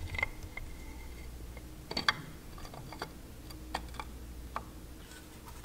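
Scattered light metallic clicks and taps as a water pump cover is handled and set against the motorcycle engine case, the sharpest about two seconds in.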